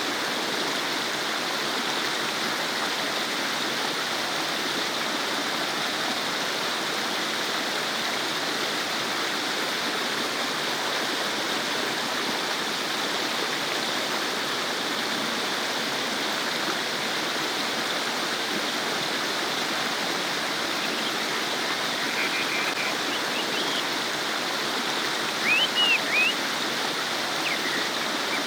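Shallow stream babbling and gurgling steadily over stones. A few short high chirps come through near the end.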